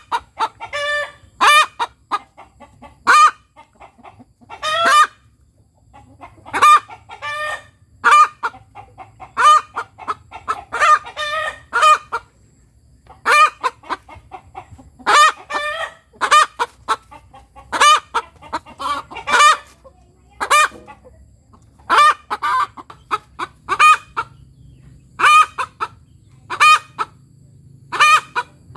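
Kampung hen cackling, 'tok tok petok': clusters of short clucks, each run ending in a longer drawn-out call, repeated every second or two. It is the cackle a hen gives after laying an egg, or when she finds something odd.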